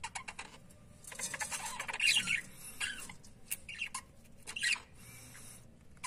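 Budgerigars chattering in short, scattered chirps, squawks and clicks, loudest about two seconds in.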